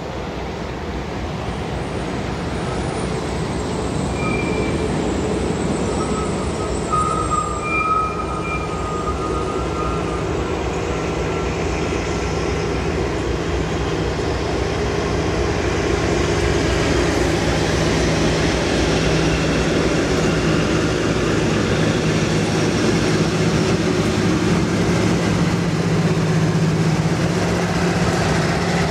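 Diesel locomotive approaching along the line, its engine drone growing steadily louder as it nears and reaches the platform.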